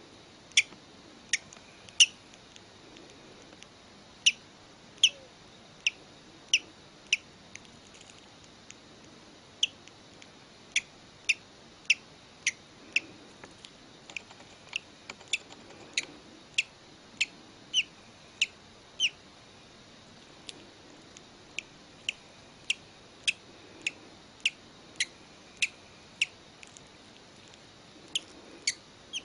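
A hatching bird chick making short, sharp, high-pitched sounds, one or two a second in irregular runs, with brief pauses between runs.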